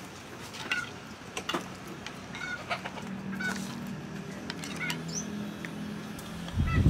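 Chickens clucking in short calls, with a few light clicks of a metal ladle against the pot.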